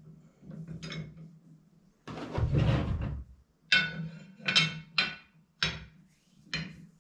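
Steel linkage arms and the threaded lift screw of a Black Boar manual implement lift knocking together as they are fitted by hand: a few light clinks, a heavier clunk and scrape about two seconds in, then five sharp metal clinks that ring briefly.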